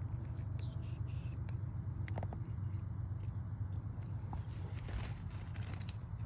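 Footsteps and a dog's nails tapping on pavement during a walk, scattered light taps over a steady low hum.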